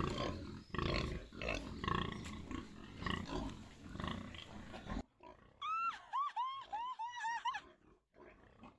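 About five seconds of loud, rough, noisy sounds with knocks. Then, after an abrupt cut, newborn piglets give a quick run of short high squeals, about five a second.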